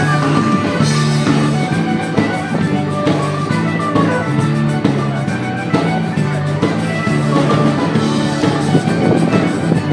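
Band music with drums and a steady repeating bass line, starting abruptly at a cut.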